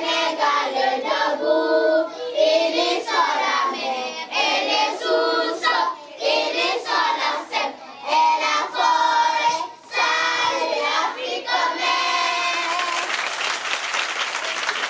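A group of children singing together in chorus, in phrases broken by short pauses. About twelve seconds in, the singing ends and applause takes over.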